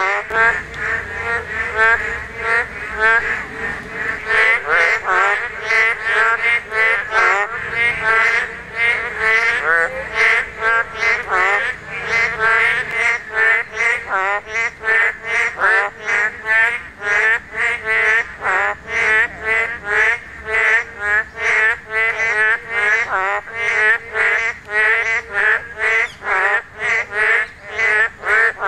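A chorus of boreal digging frogs (맹꽁이, Kaloula borealis) calling in a rain pool: short repeated calls, about two a second, overlapping without a break. These are males' breeding-season calls.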